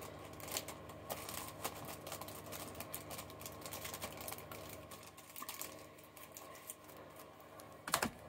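Faint clicking and rattling of plastic CD jewel cases being handled, with a louder knock about eight seconds in.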